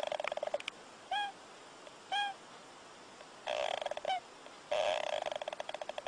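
Sleeping hamster snoring: three short rasping, rattling snores, with three brief squeaky whistles in between.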